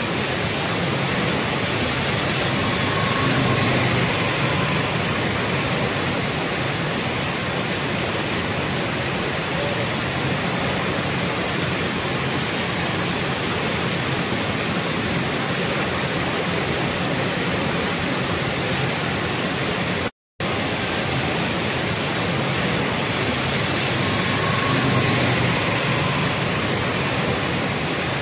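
Heavy rain pouring onto a wet street, a steady dense hiss. The sound cuts out for a moment about twenty seconds in.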